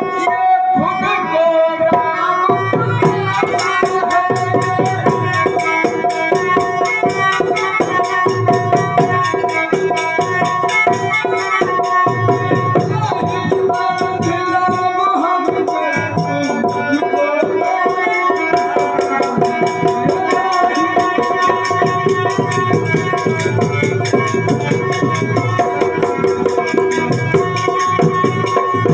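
Traditional Indian stage music for a Ramlila: a fast hand-drum beat under long held melody notes, with the drumming growing denser about three seconds in.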